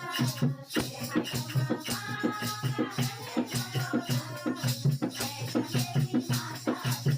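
Instrumental passage of a Hindi devotional song with a steady, even beat and no singing.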